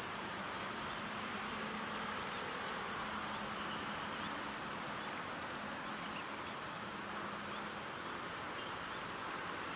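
Steady outdoor background hiss with a faint low hum that fades out near the end, and a few faint high chirps.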